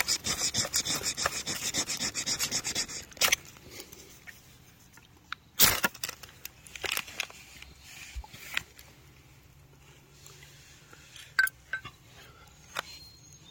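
Steel striker scraped along a ferrocerium (ferro) rod: a quick run of rasping scrapes for about three seconds, then a single loud, sharp strike a couple of seconds later that lights the fire plug tinder. A few faint clicks and crackles follow.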